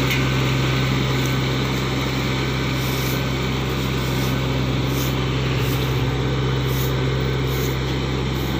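Engine of a riding rice transplanter running at a steady, even hum as the machine drives through the flooded paddy planting rows of rice seedlings.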